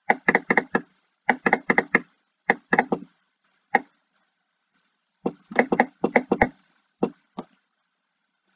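Computer mouse button clicked rapidly in short bursts of three to five clicks, then a few single clicks near the end. Each click dabs a low-opacity soft brush onto a layer mask.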